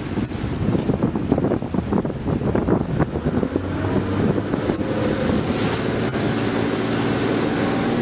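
Fishing boat under way through choppy sea: wind buffeting the microphone in uneven gusts over the first few seconds, then the boat's engine running with a steady low hum, with water rushing past the hull.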